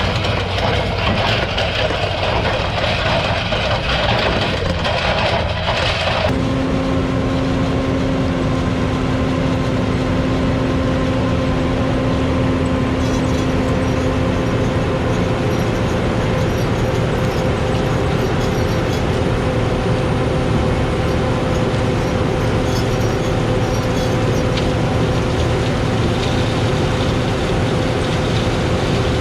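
A heavy vehicle engine running steadily, a constant drone with a steady whine over it. For the first six seconds a brighter, busier sound lies on top, then cuts off abruptly.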